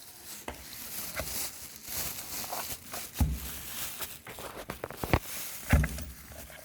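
Handling noises as a cordless tool battery pack is moved and set in place: scattered clicks and knocks with rustling, and a few duller thuds in the second half.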